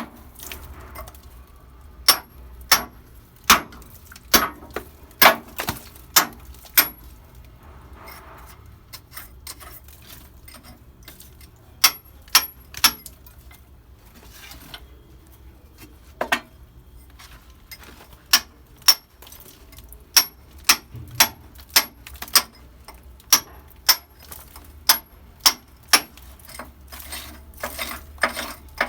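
Sharp metallic clinks and knocks, metal striking metal in runs of blows a little under a second apart, with a pause of several seconds in the middle: hand-tool work on old galvanised-iron pipe.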